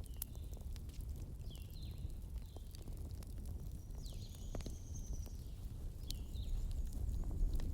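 Wood fire crackling, with scattered sharp pops over a steady low rumble. Several short high chirps sound through it.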